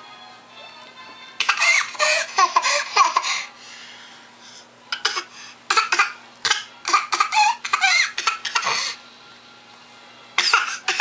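A baby laughing in three spells of short, repeated laughs, over quiet background music.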